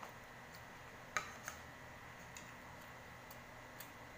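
Metal spoon and fork clicking against a plate: a few sharp, irregular clicks, the loudest a little after a second in, followed quickly by a second one.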